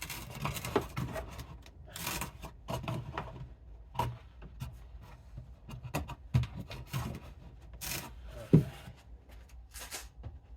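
Rubbing, scraping and irregular knocks as a small 12 V lithium battery is handled and fitted into an index card box taped inside a kayak, with one sharper knock about eight and a half seconds in.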